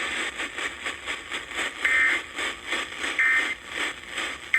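Emergency Alert System end-of-message data bursts: three short, harsh digital squawks about 1.3 s apart, the last at the very end, over steady crackling radio static.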